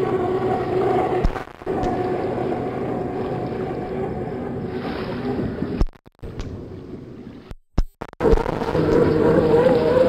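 Radio-controlled model boat's motor whining steadily as it runs across the water, cutting out briefly twice in the second half, then coming back louder.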